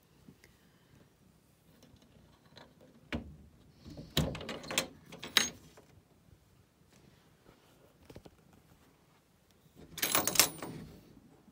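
Slatted venetian window blinds clicking and rattling as a cat pushes against them: a single click, then two bouts of clattering, the loudest near the end.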